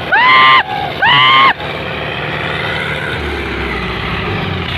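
The diesel engines of a Swaraj 744 and a Sonalika tractor labouring in a chained tug-of-war, with a deeper engine note swelling about three seconds in. Near the start, two loud high-pitched calls, each sliding up and then held for about half a second, ring out over the engines.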